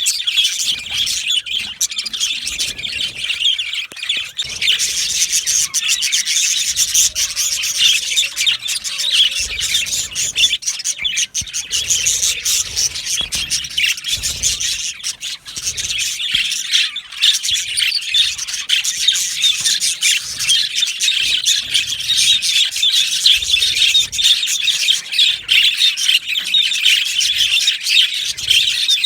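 Male budgerigars chirping and chattering together, many bright calls overlapping in a continuous, unbroken stream.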